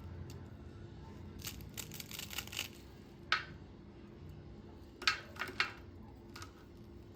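Light handling sounds: a run of rustles and clicks, a sharp tap a little past the middle, then a few more clicks near the end, over a low steady hum.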